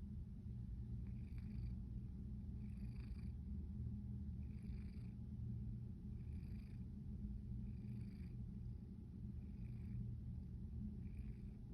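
A sleeping pet snoring: a steady low rumble, with a soft breathy rasp on each breath about every one and a half seconds.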